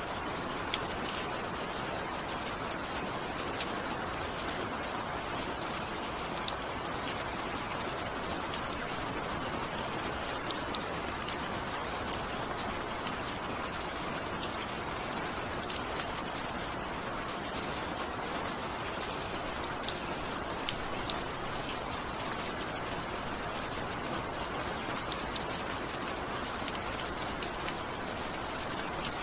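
Steady rain: an even hiss of falling rain with scattered sharper drop ticks.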